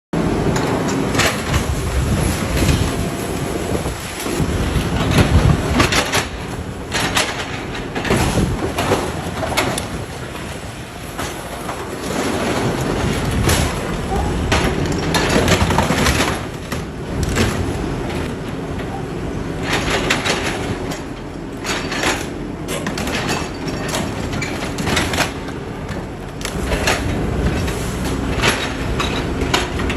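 Heavy scrapyard machinery crushing and tearing apart a car's metal body: an engine runs steadily under load while metal clanks and crunches many times.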